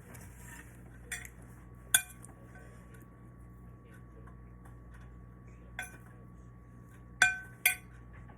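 Metal cutlery clinking against a plate or dish five times, short sharp strikes with a brief ring, the loudest about two seconds in and a quick pair near the end.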